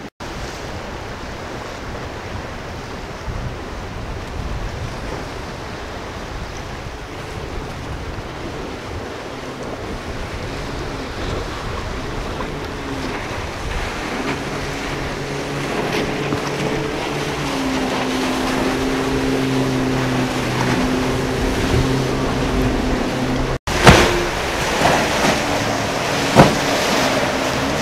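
Wind and surf, then a motorboat engine running steadily and growing louder. Near the end the hull slams down on the waves twice with loud splashes.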